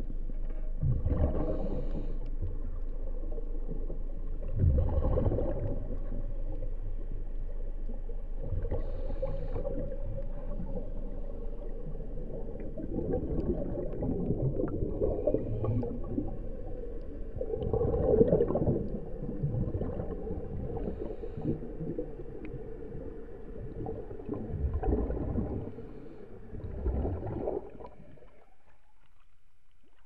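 Underwater bubbling and gurgling heard through a submerged camera, swelling every few seconds over a steady low rumble; it drops away near the end as the camera comes up out of the water.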